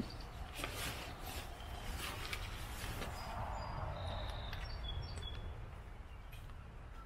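Rustling and clicking of a Gazelle 4T tent's fabric carry bag being handled during roughly the first three seconds. A few short bird chirps follow over a steady low background rumble.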